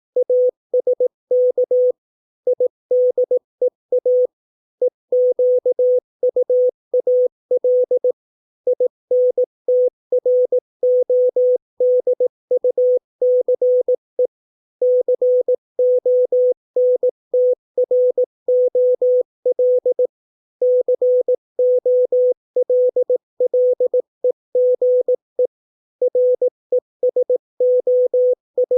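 Morse code (CW) practice tone sending English words at 18 words per minute: one steady beep pitch keyed on and off in short dots and longer dashes, with brief gaps between letters and longer pauses between words.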